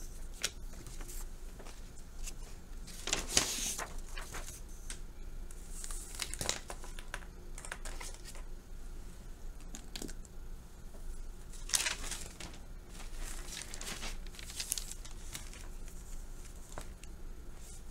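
Sheets of paper rustling and crinkling as they are handled and a blank sheet is laid out, in a few separate rustles, the loudest about three and twelve seconds in. A faint steady low hum lies underneath.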